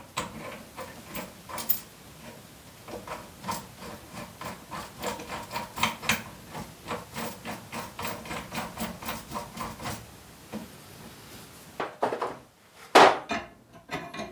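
Steel sockets and hand tools clinking as they are picked through and tried on the bearing puller's bolt to find its size: a run of light clicks several a second, with a few louder knocks.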